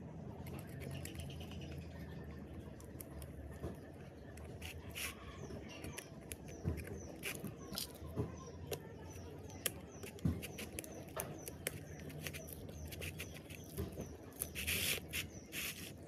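Scattered light clicks and taps of hand work on small metal parts, over a low steady hum, with short high chirps repeating about twice a second through the middle.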